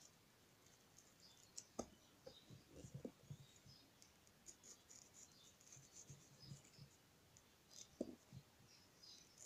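Faint clicks and scrapes of a small fruit-carving knife cutting into watermelon rind, with a few sharper ticks about two and three seconds in and again near the end.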